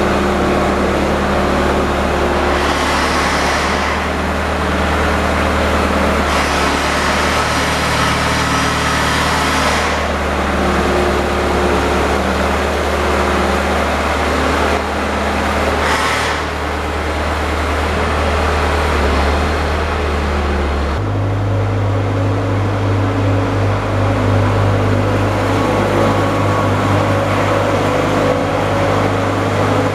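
Small riding-mower engine running steadily. About two-thirds of the way through, its note changes to a higher, stronger hum, with bursts of hiss over it in the first half.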